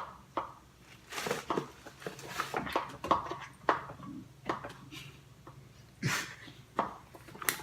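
A spoon stirring and scraping a thick, sticky cornstarch-and-yogurt slime mixture in a bowl: irregular scrapes and taps, one or two a second.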